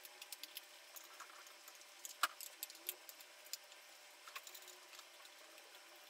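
Phillips #00 screwdriver loosening the captive screws of an iMac G4's aluminium base plate: faint, irregular small clicks and scrapes of the bit and screws, with one sharper click a little over two seconds in.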